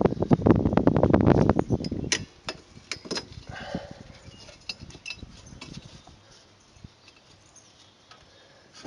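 Metal clicking and scraping of a drum brake shoe's retaining (hold-down) spring being pushed in, turned and worked off by hand. There is a dense rattle for about the first two seconds, then scattered clinks that thin out to a few faint ticks.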